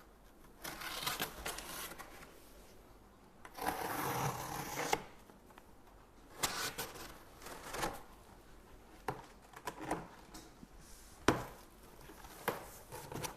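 Handling noises: two stretches of rustling and scraping, the longer about four seconds in, then a run of short sharp knocks and clicks roughly a second apart, the loudest a little past halfway.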